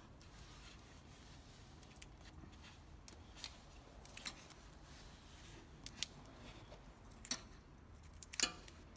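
A handful of short, sharp clicks and snips from hands working at the wiring loom inside a stripped car door, scattered over several seconds with the loudest near the end, over a faint steady background.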